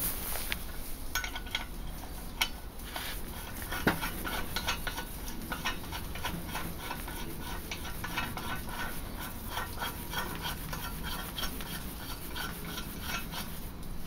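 Steel bolts and parts clinking and tapping as they are handled on a wooden workbench, a run of small irregular clicks with a louder knock about four seconds in.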